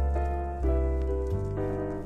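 Background music: sustained chords over a deep bass note, changing about every two-thirds of a second.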